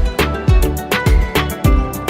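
Background music with a steady beat: a deep kick drum that drops in pitch, about two hits a second, with sharp hi-hat-like ticks between them.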